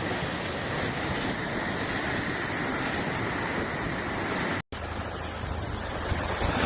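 Storm-driven surf and strong wind, a steady roar of rough sea with wind buffeting the microphone. It breaks off for an instant about two-thirds of the way through, then comes back with a deeper, gustier wind rumble.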